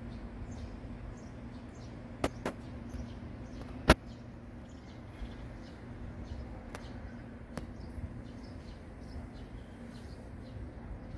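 Outdoor ambience with a steady low hum and faint, quick chirps of small birds scattered throughout, broken by a few sharp clicks, the loudest about four seconds in.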